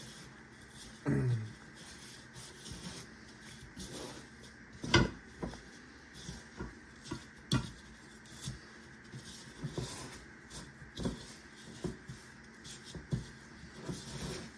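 Hands pressing breadcrumbs onto an egg-washed chicken breast in a plastic bowl: soft rubbing of crumbs with irregular light knocks of the bowl against the counter, the loudest about five seconds in.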